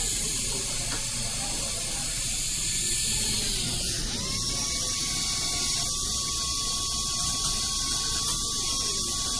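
Dental cleaning instruments at work close to the ear: a steady hiss like suction or water spray, with a thin whine that stops and starts up again about four seconds in.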